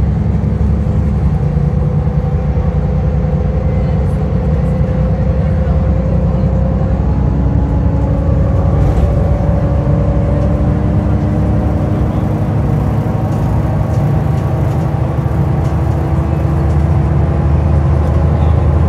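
Istanbul Metrobüs bus in motion: a steady, loud low rumble of engine and road, with faint whining tones that drift slowly in pitch.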